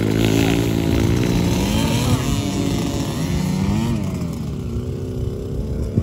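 Small youth motocross bikes running laps, their engines revving up and down in pitch as they go through the corners, with more than one engine heard at once. The sound eases off a little in the second half.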